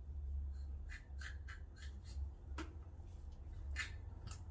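A knife slitting open the belly of a skinned, hanging goat carcass: a handful of short, uneven scraping strokes over a steady low hum.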